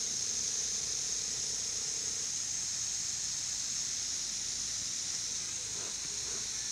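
Lawn sprinkler spraying water in a steady, even hiss.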